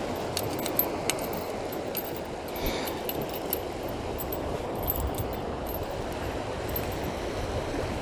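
Steady rush of a shallow river flowing over rocks, with scattered light metallic clicks and rattles from the spinning reel, rod and dangling spinner lure being handled.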